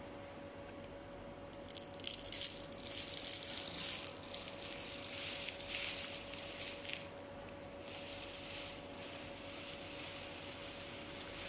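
Stainless steel magnetic bar pushed and rolled through a tray of white granules mixed with iron filings: a gritty scraping and crunching of the grains, loudest from about two to four seconds in and dying away after about seven seconds.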